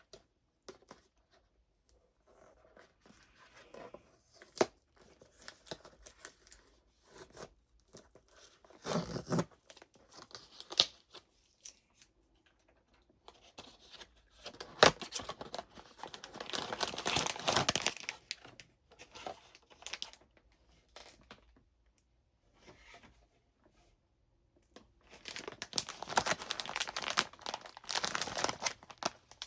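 Hands tearing open a taped cardboard blind box and crinkling its packaging: irregular stretches of ripping and rustling with sharp clicks between. The longest, loudest stretches come around the middle and near the end.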